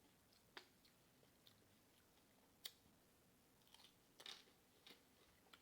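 A person chewing a mouthful of nachos made with Doritos, heard close up: scattered crunches and mouth smacks, a few seconds apart, with a quick run of them about four seconds in.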